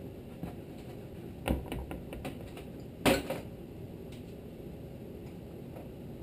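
Small engine carburetor clattering against a galvanized sheet-metal tray: a few light clicks, a sharp knock about one and a half seconds in, then a louder knock with a brief metallic ring about three seconds in.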